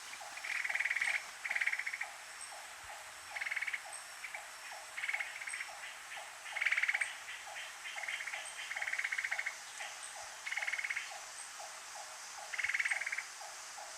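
Cream-vented bulbul calling: short, buzzy, rattling phrases repeated every second or so. Behind them, a regular low pulsing call keeps time a couple of times a second.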